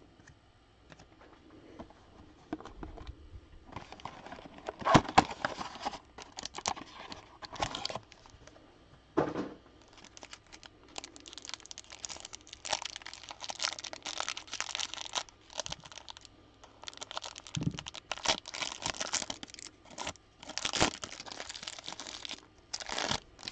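Cardboard and plastic wrapper of a 2021 Donruss football card hanger box being torn open and crinkled, in irregular bursts of tearing and crackling with a few sharper snaps.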